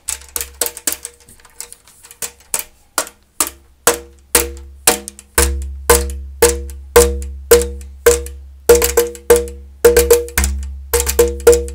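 Someone pounding out a beat on a tubular boom pole case; each hit is a knock with a short, hollow, pitched ring. The hits are light and scattered at first. From about four seconds in they grow louder and settle into a steady beat of about two a second, with quick double hits later on.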